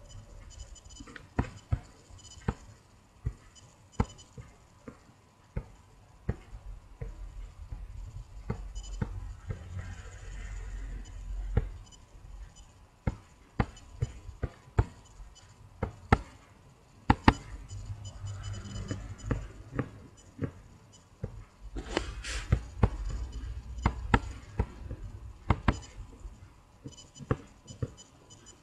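Computer mouse clicking: single sharp clicks at irregular intervals, a few of them loud. Stretches of low rumbling noise come between them.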